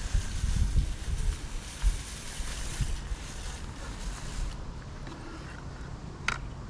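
Wind gusting on the microphone, a low rumble with a broad hiss that eases off about two-thirds of the way through, and a brief high chirp near the end.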